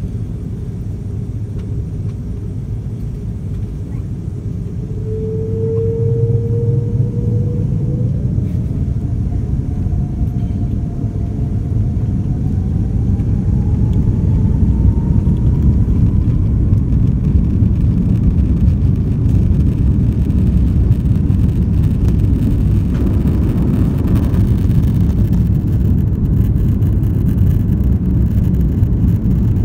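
Airliner's jet engines spooling up to takeoff thrust, heard inside the cabin: a low rumble grows louder while an engine whine rises steadily in pitch, then the rumble of the takeoff roll holds loud and steady.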